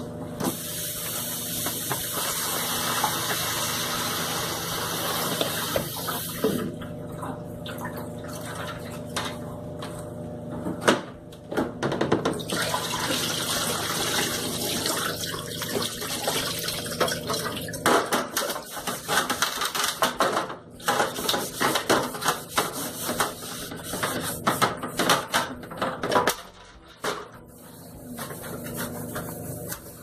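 Water running from a tap into a sink, starting and stopping, with irregular splashing and knocking in the second half as things are washed under the stream.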